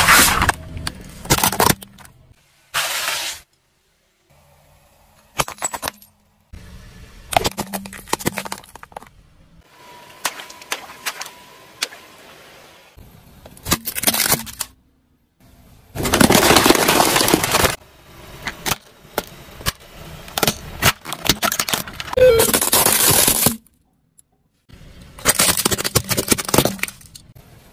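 A string of separate crunching and cracking sounds as a car tyre rolls over and crushes objects such as plastic toys and shoes. Some are brief snaps and some are longer crackling crunches of a second or two, each cut off abruptly with short gaps between.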